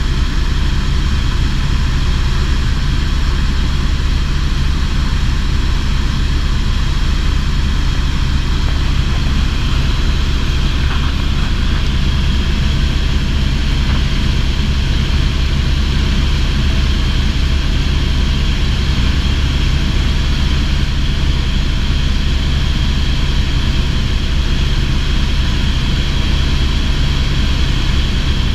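Helicopter's engine and rotor running steadily in flight, heard from inside the cabin as a loud, constant drone.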